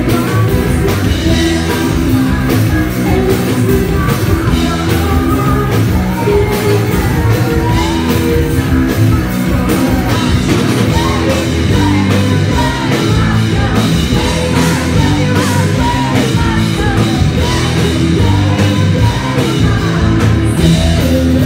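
Live rock band playing loud, with electric guitar, a driving drum beat and singing.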